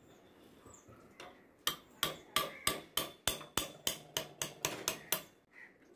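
Flat wood chisel cutting into a wooden carving blank, a quick run of sharp clicks about four a second as it pares off chips.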